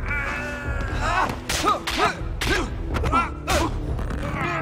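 Kung fu film fight sound: sharp punch and block impacts about once a second, mixed with the fighters' strained grunts and shouts.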